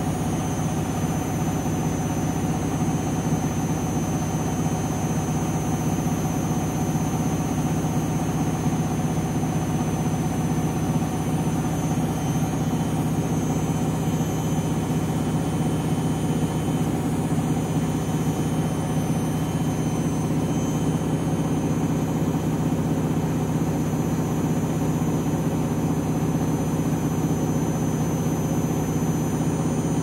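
Candy front-loading washing machine in its spin cycle: a steady motor and drum hum with constant whine tones, holding one speed throughout.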